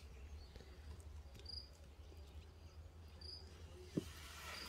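A cricket chirping faintly, short high chirps about every one to two seconds, over a low steady hum. A soft thud about four seconds in as a chunk of raw meat is laid in the clay pot.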